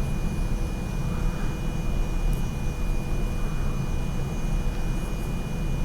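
Steady low room rumble, like an air conditioner running, with a thin steady high tone and two faint light ticks.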